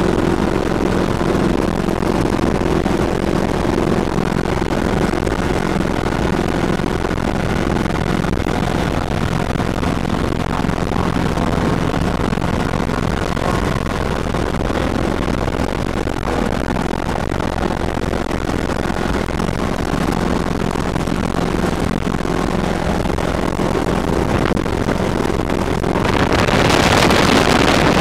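Hughes 300 light helicopter in flight, heard from inside the cockpit: its four-cylinder piston engine and rotors run steadily with a constant drone. Near the end a louder rush of wind noise swells for a couple of seconds.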